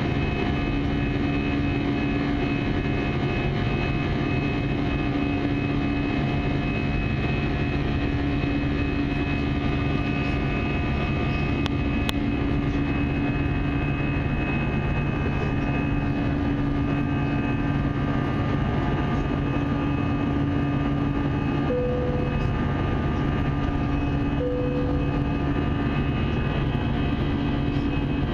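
Steady cabin drone of an Airbus A320 airliner in flight, the even roar of its engines and airflow with several steady hums running through it.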